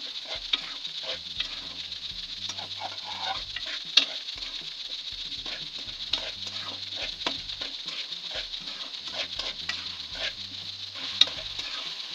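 Chicken masala sizzling in a metal pan while a metal spoon stirs and scrapes it, with frequent clicks of the spoon against the pan and a sharper knock about four seconds in and again near the end. It is the bhuna stage: the spiced masala frying down after a little water was added so it won't stick.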